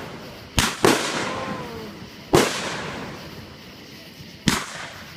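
Consumer aerial fireworks bursting: four sharp booms, two close together about half a second in, another a little after two seconds and one near the end, each trailing off in a long rolling echo.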